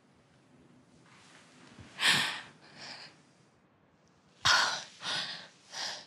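A woman breathing heavily, about five loud, ragged breaths in and out, distressed after waking from a nightmare.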